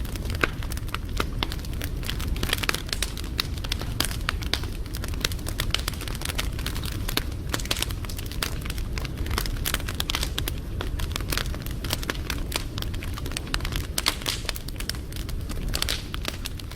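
Wood fire crackling, with many irregular sharp pops and snaps over a steady low rumble of the flames.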